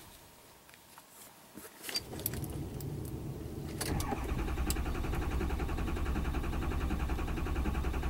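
2006 Ford Super Duty's 6.0 L Power Stroke diesel cranking on the starter without firing. The cranking starts about four seconds in, after a few clicks and rattles. Injection control pressure reaches only about 130 psi, too low for the injectors to fire, which the owner puts down to a sticking IPR valve.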